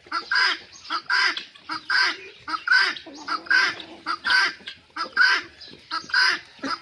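Domestic poultry calling: loud, harsh calls repeated about two or three times a second without a break.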